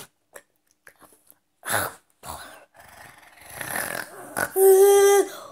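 A boy gagging and groaning in disgust while forcing down a tomato. Rasping retches come after a quiet first second or so, then one held, whining groan near the end.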